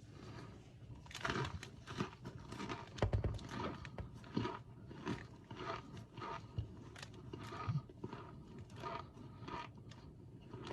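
Crunchy food being bitten and chewed, a steady run of crisp crunches about two a second.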